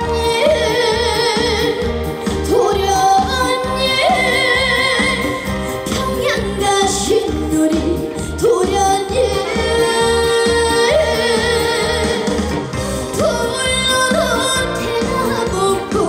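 Female vocalist singing a trot song with heavy vibrato over amplified backing music with a steady beat.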